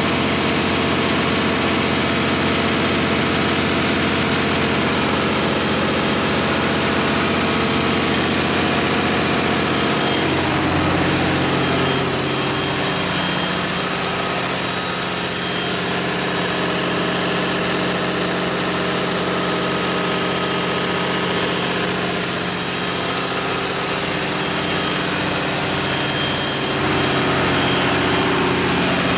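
The Cummins KTA19-G2 turbocharged inline-six diesel engine of a 400 kW standby generator set running steadily at constant governed speed. Its sound shifts slightly about ten seconds in, then stays even.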